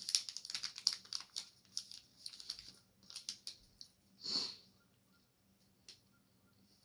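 Snack wrappers crinkling and tearing as they are handled and opened, a quick run of sharp crackles over the first four seconds. A short breathy rush follows about four seconds in, then only a few faint rustles.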